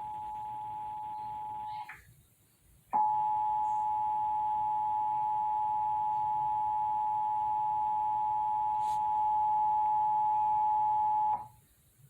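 Emergency Alert System attention signal: the steady two-tone 853 and 960 Hz alert that announces an emergency warning is about to be read. It breaks off about two seconds in, resumes a second later a little louder for about eight seconds, and stops shortly before the end.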